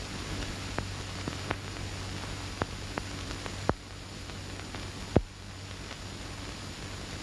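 Steady hiss and low hum of an old film soundtrack, with scattered clicks and pops; the sharpest pop comes about five seconds in.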